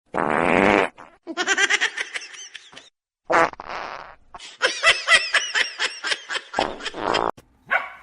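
Three short buzzy fart-like blasts, one near the start, one about halfway and one near the end, alternating with two runs of a person's laughter.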